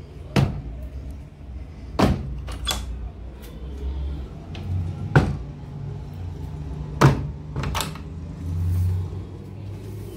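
Several sharp knocks and clicks, about six spread over ten seconds, over a steady low rumble.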